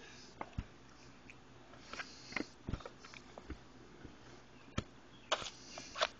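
Toddler eating noodles by hand: faint, scattered mouth smacks and clicks of chewing, with a few short breaths, irregular and spread through the whole stretch.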